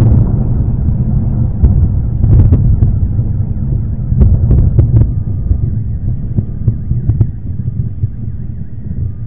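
Rolling thunder: a loud, low rumble that slowly dies away, with a few sharp taps scattered through it.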